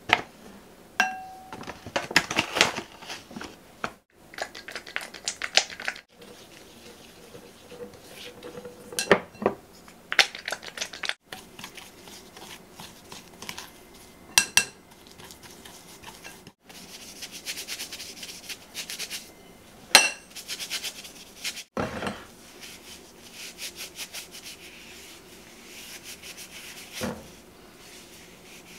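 Plastic spoon scooping baking soda and stirring it into a paste with dish soap in a glass bowl: stretches of quick scraping with sharp clicks here and there as the spoon strikes the glass.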